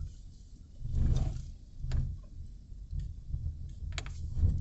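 Light rain: scattered drops ticking sharply at irregular intervals on a hard surface close by, over a steady low rumble, with a brief swell of noise about a second in.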